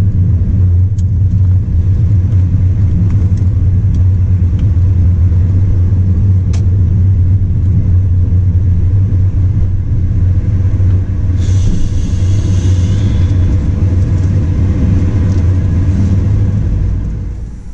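A 2008 Porsche Cayman S's 3.4-litre flat-six and road noise heard from inside the cabin while driving: a steady low drone. There is a brief hiss about twelve seconds in, and the sound drops away near the end.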